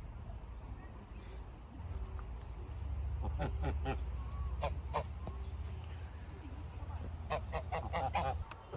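Birds calling in short pitched bursts, in three clusters about three seconds, five seconds and eight seconds in, over a steady low rumble.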